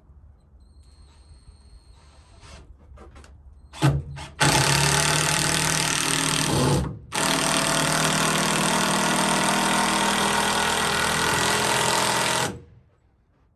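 A power tool runs hard for about two seconds, pauses for a moment, then runs steadily for about five more seconds before stopping abruptly. A few light clicks and a short burst come just before it starts.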